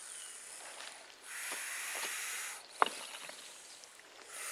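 Eastern hognose snake hissing defensively in long breaths: a faint hiss at first, then one loud, breathy hiss from about a second in that lasts about a second and a half. A single sharp click follows just after it.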